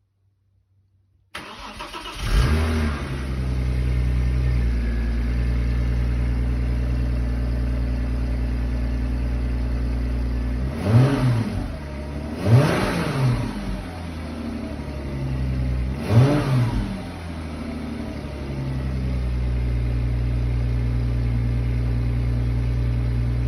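VW Passat 2.8 V6 cold-starting on its stock exhaust: it cranks briefly, catches with a short flare in revs, and settles to a steady fast cold idle. About halfway through it is revved briefly three times, then returns to the steady idle.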